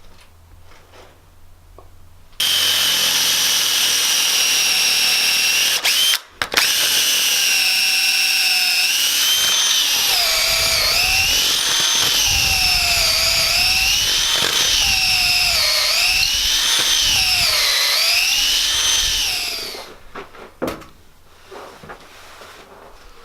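Chainsaw running while cutting down the top of a log to level it, its pitch dipping and rising over and over as the chain bites into the wood. It starts a couple of seconds in, breaks off for a moment about six seconds in, and stops near the end.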